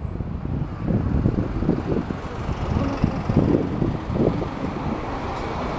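Wind buffeting the microphone on the open top deck of a moving sightseeing bus, over road traffic noise, in uneven gusts.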